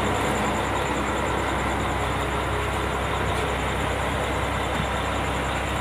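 Diesel bus engines idling close by: a steady drone with a low hum.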